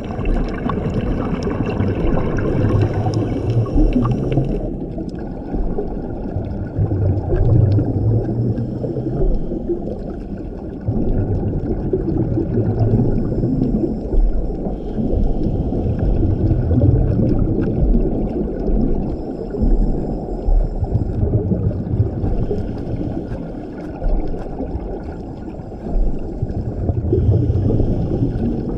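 Underwater sound of a scuba diver breathing through a regulator: a steady low water rush, with gurgling rumbles of exhaled bubbles coming back every few seconds between quieter hissing inhales.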